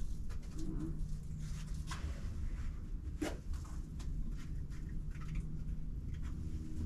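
A climber's shoes and hands scuffing and scraping on boulder rock, in short scattered scrapes with the sharpest about three seconds in, over a steady low rumble.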